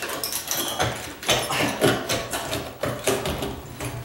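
Steel pry bar scraping and grinding against the rim of a cast iron sink and the crumbling mortar around it, in repeated uneven strokes with a few brief metallic squeaks, as the sink is worked loose from its setting.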